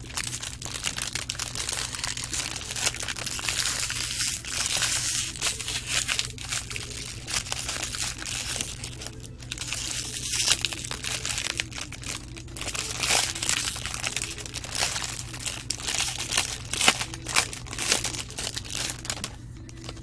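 Foil wrappers of 2020 Bowman Draft baseball card packs crinkling as they are torn open and handled by gloved hands, an unbroken rustle full of sharp, irregular crackles.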